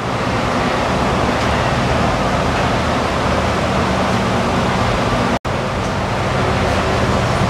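Steady rushing noise with a low hum underneath, cutting out for an instant about five and a half seconds in.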